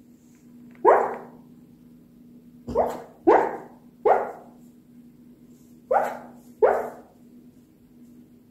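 Australian shepherd barking in her sleep while dreaming: six short barks, each dropping in pitch. One comes about a second in, three follow close together around the middle, and two come near the end.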